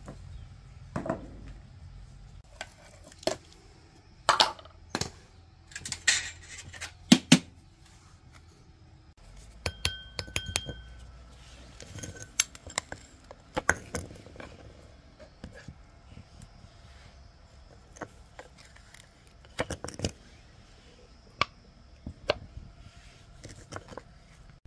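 Irregular metal clinks and knocks of tools and car parts being handled, a few of them ringing briefly.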